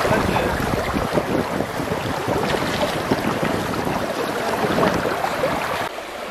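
Shallow, rocky river running and splashing, a dense, steady rush of water with irregular gurgles.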